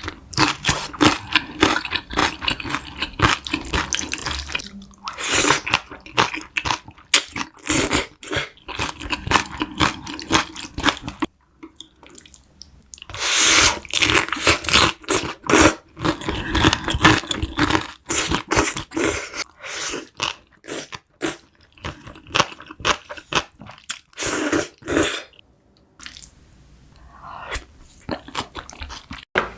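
A person biting and chewing crunchy food, with dense runs of crackling crunches that stop briefly twice, about eleven seconds in and near the end.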